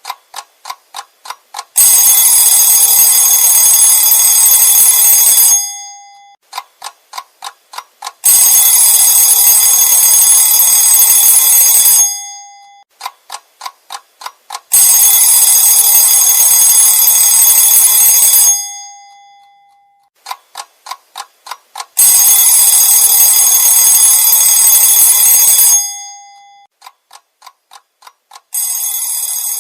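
Old-style bell alarm clock going off in cycles: a run of quick ticks, about four a second, then a loud ringing of the bell for about four seconds that fades away. This happens four times, and near the end a quieter, different ringing begins.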